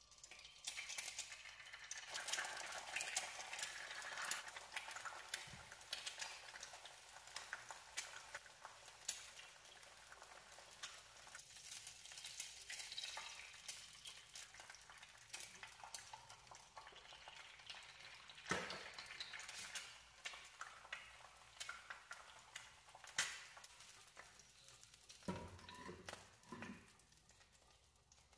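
Food sizzling as it fries in a pan while a utensil stirs it, with small clicks and scrapes against the pan and a few sharper knocks near the end.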